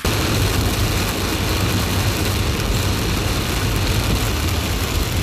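Heavy rain pelting a moving car, heard from inside the cabin: a loud, steady rushing hiss over the low rumble of the engine and tyres on the wet road.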